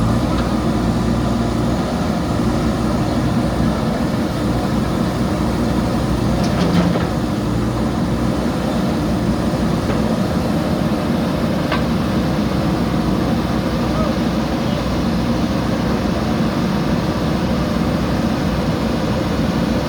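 Diesel engine of a JCB backhoe loader running steadily under work, with a couple of brief knocks.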